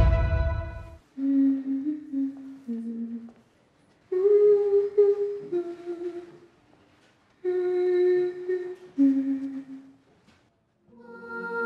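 A single voice humming a slow tune in short phrases of held notes, with brief pauses between them; intro music cuts out about a second in.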